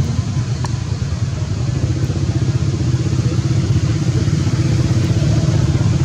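Steady low engine rumble running throughout, with a faint steady hum joining about two seconds in.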